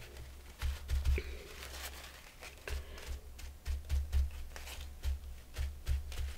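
Crumpled paper towel dabbed again and again on a gel printing plate to blot wet paint: irregular soft pats, each a brief crinkle of paper with a dull thud from the table.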